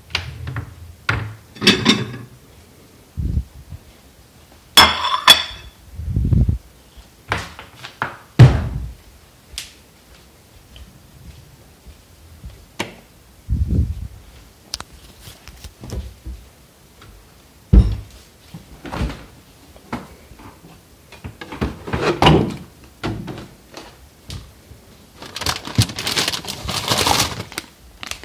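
Irregular knocks, thuds and clicks of household things being handled and set down, with a few seconds of rustling near the end.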